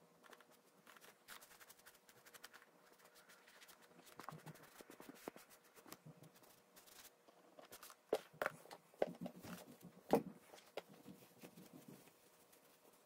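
Faint rustling, scraping and soft taps from a leather riding boot being handled and wiped with a tack sponge on a towel, with a few louder knocks about eight to ten seconds in.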